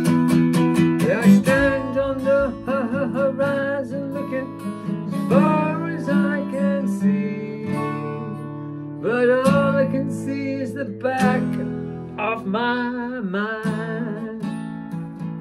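A man singing in phrases to his own strummed acoustic guitar, with short gaps between the lines where only the guitar chords carry on.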